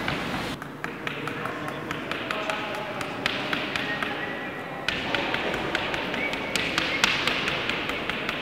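A black drawing stick rapidly tapping and scraping on a wall as short strokes and dashes are drawn: many sharp taps, coming faster from about halfway through.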